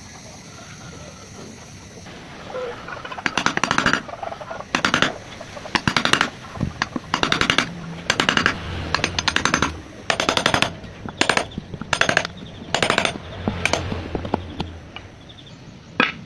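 A power tool driving fasteners into wood in about a dozen short bursts of rapid hammering, with one sharp click near the end.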